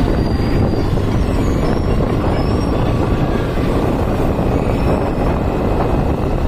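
Steady, loud vehicle noise: an even rushing sound with no clear engine note and no distinct events.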